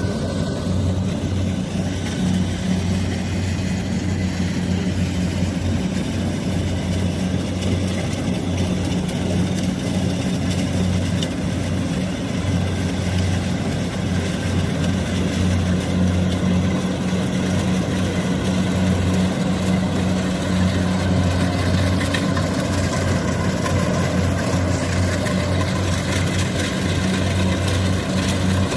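Kubota combine harvester's diesel engine running steadily with a constant low drone.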